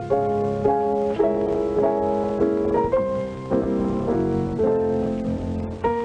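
Piano playing a gentle tune in chords, a new note or chord about every half second.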